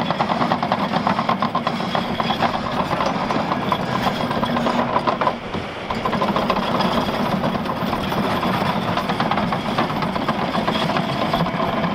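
Caterpillar D6 crawler dozer's diesel engine running while its steel tracks clatter rapidly as it moves across the dirt.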